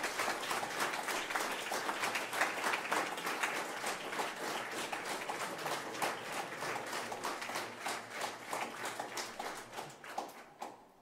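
Audience applauding with dense clapping that thins out and dies away near the end.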